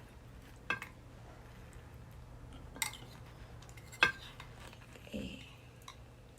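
Tableware clinking: three sharp clinks of metal cutlery against dishes, the loudest about four seconds in.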